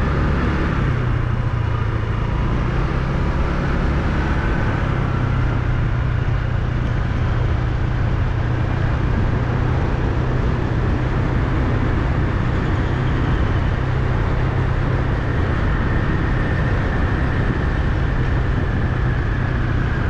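Motorcycle engine running steadily at a cruise, with wind and road noise from riding.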